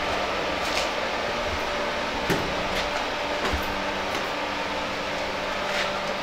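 Steady machinery hum with a few held tones, like the ventilation drone of an underground car park, broken by scattered light knocks and clicks of footsteps and bags being handled; the sharpest knock comes about two seconds in.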